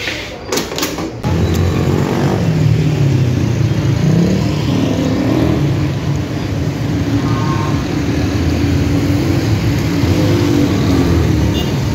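Street traffic: a steady din of passing car and motorbike engines, coming in abruptly about a second in.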